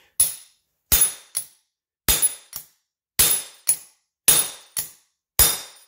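Claw hammer striking a bolt set on a steel square washer, sharp metal clanks with a brief ring, in pairs of a hard blow and a lighter one roughly once a second, about ten strikes. The blows are punching a worn rubber bushing out of a Honda Civic rear lower control arm.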